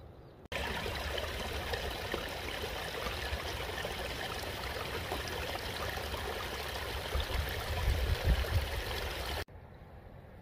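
Rushing water of a mountain stream or cascade: a steady, dense rush that cuts in abruptly about half a second in and cuts out abruptly near the end, with a few louder low rumbles around eight seconds in.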